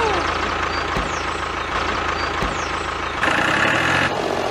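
Engine idling steadily with a low hum and two brief low thumps. A little over three seconds in, a brighter buzzing layer joins in.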